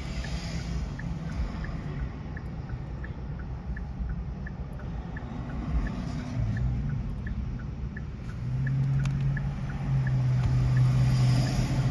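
Street traffic and a vehicle engine's steady low hum, which grows louder and more distinct about eight seconds in. A faint, regular ticking runs underneath, about two to three ticks a second.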